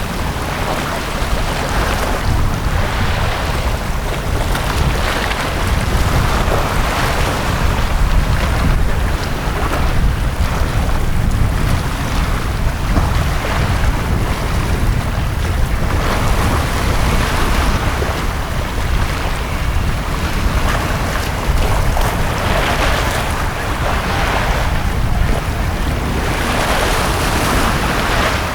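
Sea waves washing onto a beach, each surge swelling and fading every few seconds over a constant low rumble.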